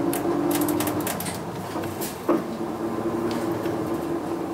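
Cabin running noise of a Hino Blue Ribbon II diesel city bus moving slowly, a steady engine and drivetrain hum with a held tone. Light clicks and rattles from the bus's fittings come through the first couple of seconds, and one sharp knock comes about two seconds in.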